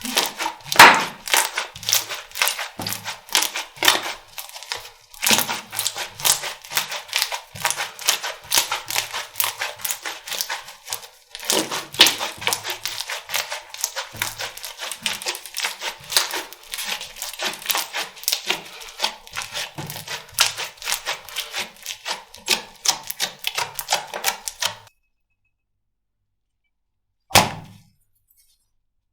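Slime being squeezed and poked by hand, a dense, irregular run of sticky clicks and pops that stops about 25 seconds in, with one more short pop near the end.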